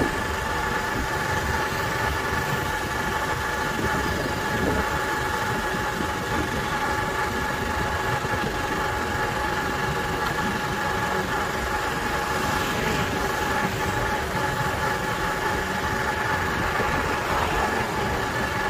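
Motorbike engine running at a steady pace while riding, with a steady whine held at one pitch over a dense rumble of wind and road noise.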